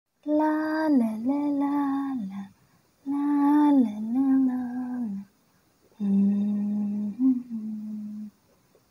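A woman humming a wordless tune in three phrases of about two seconds each, with short pauses between them.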